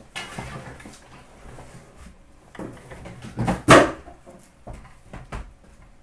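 Cardboard hobby boxes being lifted out of an opened cardboard shipping case and set down on a glass display counter. A rustling slide of cardboard comes first, then a loud clatter of boxes about three and a half seconds in, followed by a few lighter knocks.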